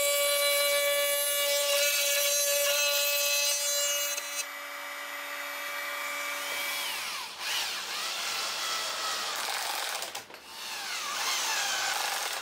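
Table-mounted router running with a steady high whine while plywood is fed past the bit. The whine stops about seven seconds in, giving way to wood rubbing and scraping.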